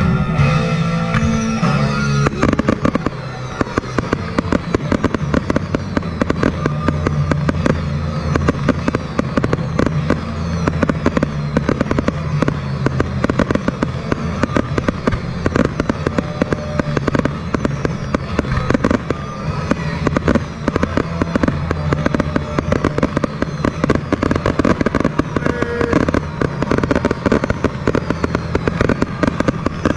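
Fireworks from multi-shot cakes firing in rapid succession: a dense, continuous stream of bangs and crackle that starts about two seconds in.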